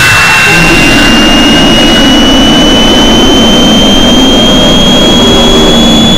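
Very loud harsh noise with a single piercing high tone that creeps slowly upward in pitch, layered over a rough, shifting lower rumble.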